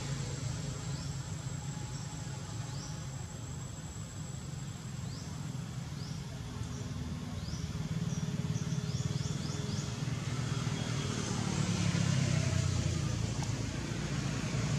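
Outdoor background: a steady low rumble with a faint high whine over it, and short rising high chirps, a few scattered early and a quick run of them around eight to nine seconds in.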